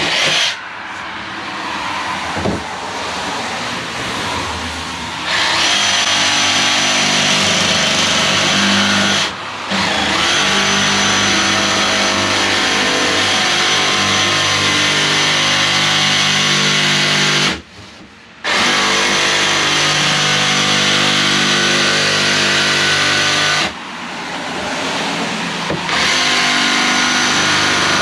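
Cordless DeWalt XR jigsaw, speed dial on 7, sawing through a waterproof flooring plank: a steady high motor whine with the blade's rapid chatter. Lighter for the first few seconds, it then runs loud in long stretches, stops briefly twice (about a third of the way in and just past halfway) and eases off for a couple of seconds near the end before picking up again.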